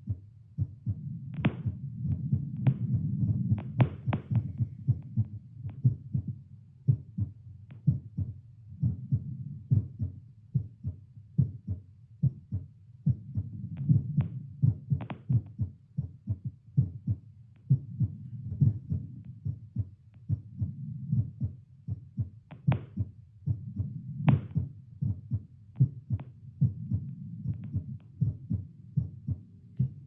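A heartbeat amplified through a Littmann CORE digital stethoscope held to the chest: a regular train of short low thuds, with a few sharper clicks now and then. The beat is settling back to a resting rate of about 77 to 78 beats a minute after ten squats.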